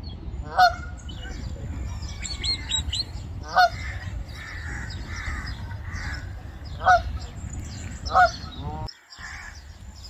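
Canada goose honking four times, a few seconds apart, with short high chirps of small birds in between.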